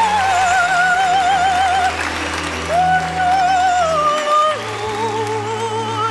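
A male soprano sings operatically in a high voice, holding long notes with a wide vibrato over an orchestral backing track. He moves to new notes about three seconds in and again about four and a half seconds in.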